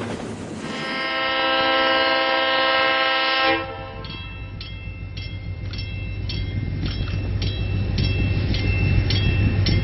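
Diesel locomotive air horn sounding one long chord about a second in, cutting off sharply after about three seconds. Then the locomotive's engine rumbles, growing louder, under a bell ringing steadily just under twice a second.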